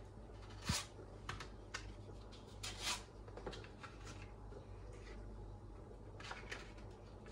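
Scattered light clicks and taps of kitchen things being handled while a lasagna is assembled, over a low steady hum.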